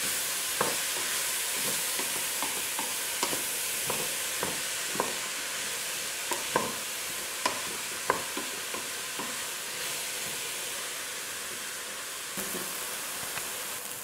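Diced onions sizzling as they are browned in a stainless steel pot, stirred with a wooden spoon that knocks against the pot now and then.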